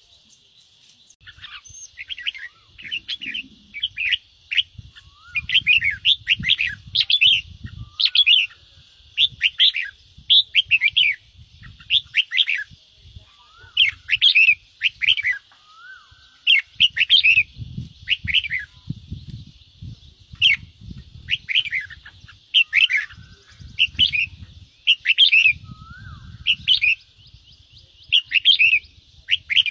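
Red-whiskered bulbul giving its harsh chattering 'ché' calls: short, rapid phrases repeated about once a second, with faint low thuds underneath.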